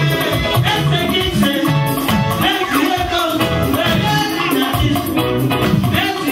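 Church music: voices singing over drums and other percussion keeping a steady, driving beat.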